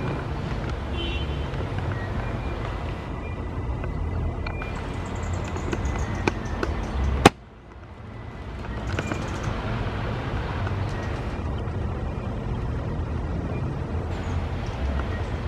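Steady low rumble of background noise, broken by one sharp click about halfway through, after which the sound briefly drops and then builds back up.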